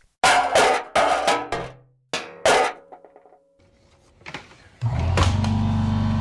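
Pneumatic brad nailer firing three times into MDF, each shot a sharp crack with a short hiss of air. About five seconds in, an air compressor kicks on and runs with a steady low hum.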